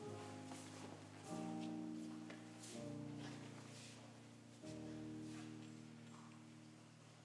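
Soft instrumental music of held, unwavering chords that change every second or two and grow quieter near the end.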